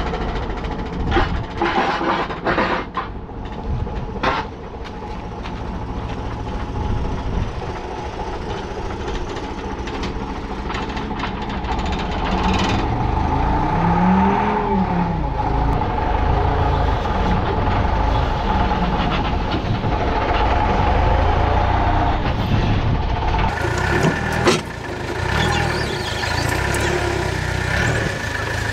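Diesel forklift engine running, revving up and back down about halfway through as its forks lift a steel crane boom, with metal knocks and clanks; a sharp clank near the end.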